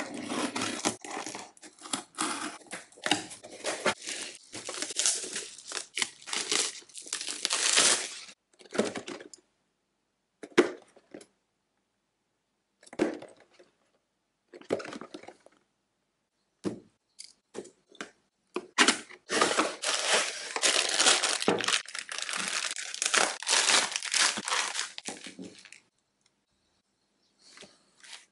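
Cardboard shipping parcel being opened by hand: packing tape peeled and torn and packaging crinkled and rustled, in two long busy spells with scattered short crackles and handling noises between them.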